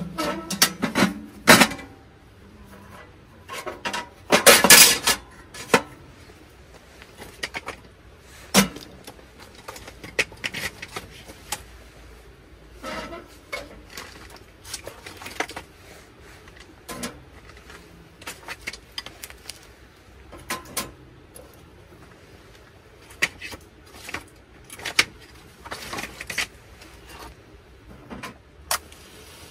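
Irregular metal clinks and knocks from a stainless-steel wood stove as its door is opened and kindling and firewood are set inside on the grate, with a denser, louder clatter about four to five seconds in.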